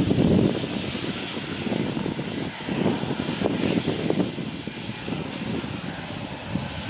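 Aircraft engines giving a steady rushing noise, with gusty, uneven low rumbling from wind buffeting the microphone.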